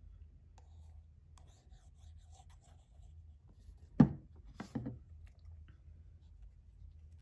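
Soft rustling of a paper cutout being handled and glue squeezed from a plastic school glue bottle, over a low steady hum. About four seconds in comes a sharp knock, followed by two smaller knocks, as the glue bottle is set down on the table.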